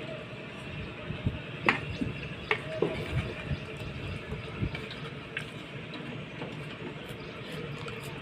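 A few light clinks and knocks of a utensil against a metal cooking pot, mostly in the first half, over a steady low hum.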